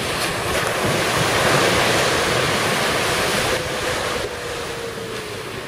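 Surf: a small wave breaking and rushing in over the shallows, the wash swelling for about three seconds and then easing off. A faint steady hum lies underneath in the second half.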